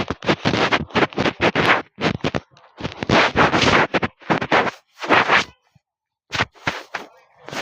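Scratchy rubbing and scraping noise on the camera's microphone, in irregular loud bursts with short silent gaps.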